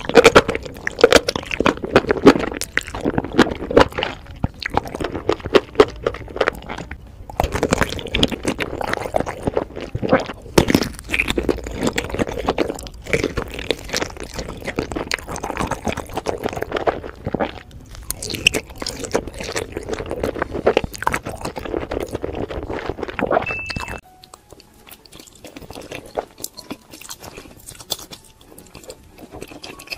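Close-miked mukbang eating sounds: wet chewing and smacking of sauced noodles and sausage, full of crisp clicks. About 24 seconds in it cuts to quieter, sparser chewing.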